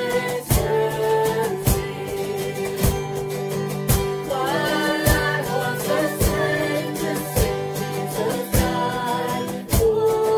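Acoustic guitar strummed steadily, accompanying several voices singing a worship song together.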